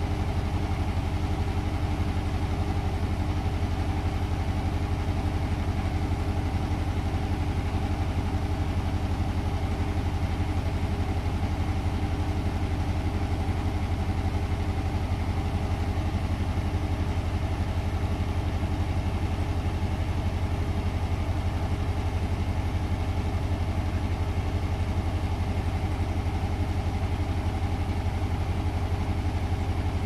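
Hoover DXOA69HC3B front-loading washing machine running with a steady low hum and even mechanical drone, unchanged throughout.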